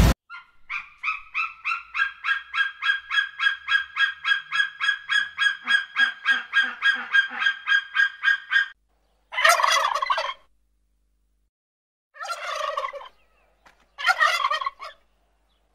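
A long run of rapid, evenly spaced high-pitched calls, about four a second, lasting some eight seconds, followed by male domestic turkeys gobbling three times, each gobble about a second long.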